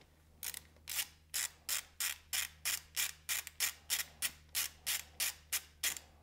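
Ratchet wrench with an Allen bit clicking steadily, about three clicks a second, as it backs out the banjo bolt on a motorcycle's front brake caliper.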